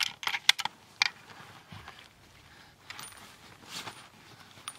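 Several sharp metallic clicks close together in about the first second, then soft rustling: a rifle being handled while the shooter settles in behind it.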